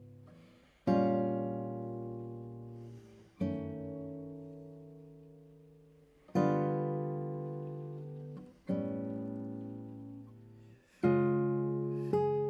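Nylon-string classical guitar playing slow, widely spaced chords, each struck and left to ring and fade before the next. There are six chords, about one every two and a half seconds, with the last two closer together.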